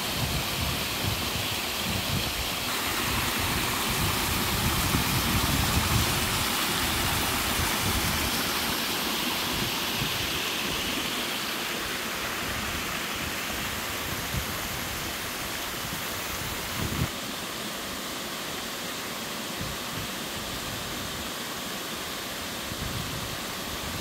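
Mountain stream rushing steadily over sloping granite slabs and a small cascade. The rush changes in tone a few times, about three seconds in and again near seventeen seconds.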